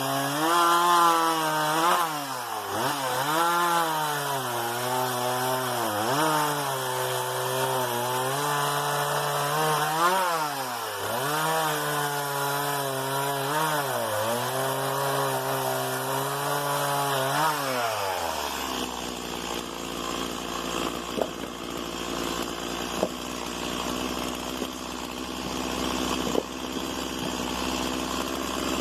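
Stihl MS 170 small two-stroke chainsaw cutting wood at high revs, its pitch dipping and recovering several times as it bogs down in the cut. About 18 seconds in it drops to a steady idle.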